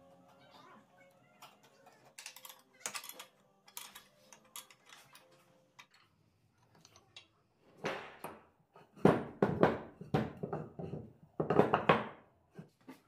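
Light metal clicks and clinks of a bracket and bolt being fitted and tightened with a wrench, then louder knocks and scrapes of heavy wooden blocks being handled and set down on the workbench in the second half.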